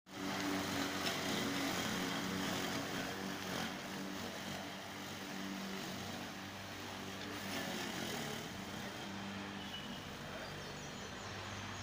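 Rank RMEL455 2 HP single-phase electric rotary lawn mower running and cutting grass, a steady motor hum over the rush of the blade. It grows a little fainter after the first few seconds as it is pushed away.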